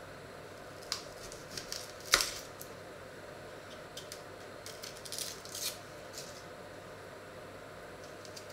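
Dry onion skins crackling and a small paring knife clicking as an onion is peeled by hand: scattered crisp crackles, the loudest a sharp snap about two seconds in, with another cluster a little past the middle.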